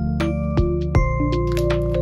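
Background music: a soft instrumental track with bell-like keyboard notes over bass and a steady beat.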